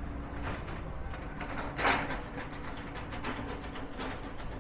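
Street background noise: a steady low rumble and faint hum, with one short loud noisy burst about two seconds in and a few faint clicks.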